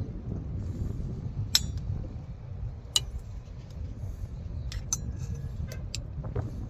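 Sharp metallic clinks and taps of hand tools on a fuel-line hose clamp, about eight scattered strikes with the loudest about a second and a half and three seconds in, over a steady low rumble.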